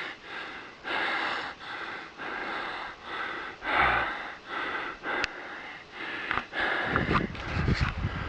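A man walking through snow and breathing hard after a long uphill climb: a steady run of crunching steps and heavy breaths, about one and a half a second, with a low rumble near the end.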